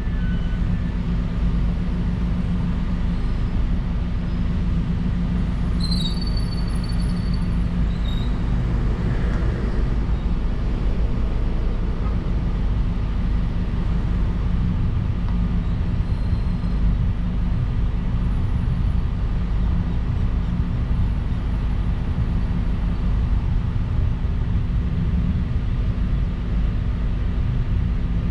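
Car driving at highway speed: a steady low rumble of road and engine noise.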